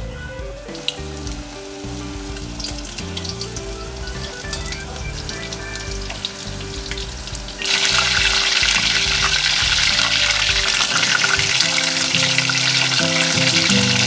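Breaded boneless chicken pieces deep-frying in hot oil in a stainless steel pot: a steady sizzle with scattered pops, which turns much louder a little past halfway. Soft background music plays underneath.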